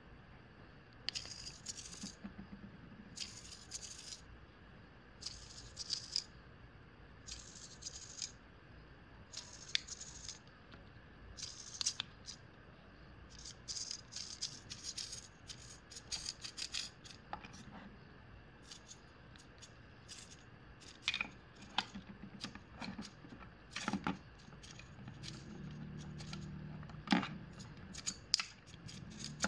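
Micro hobby servo in a robot gripper being swept by a servo tester: its motor and plastic gears whir in about one-second spells every two seconds or so, then in quicker, uneven spells. Scattered sharp clicks and knocks of handling the gripper follow near the end.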